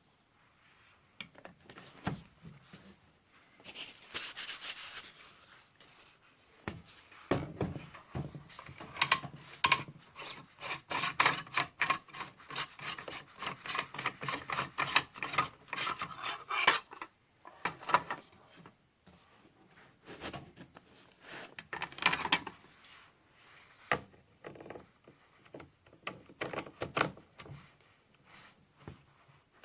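Clicking, rattling and scraping as a battery chainsaw's bar and chain are handled and fitted onto the saw, in bursts with quieter pauses between.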